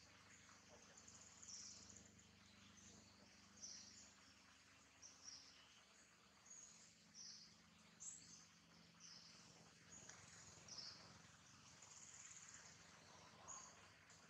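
Near silence: faint high-pitched chirps, some trilled, repeat about once a second over a low steady hum.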